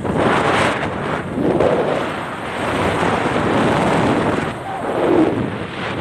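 Wind buffeting the microphone in loud gusts that swell and ease every second or two.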